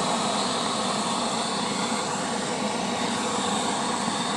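About 50 grams of sodium burning on water, giving a steady, even hiss that doesn't let up.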